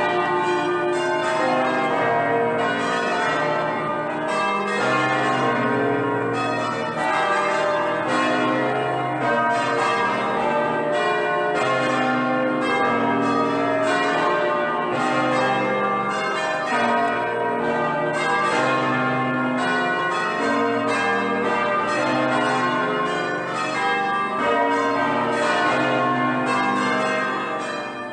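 Church bells ringing a continuous festive peal, many bells of different pitches struck in quick, overlapping succession.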